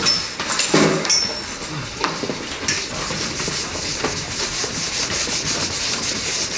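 A couple of short high squeaks in the first second, then steady, dry scratching and rubbing of chalk against a classroom chalkboard.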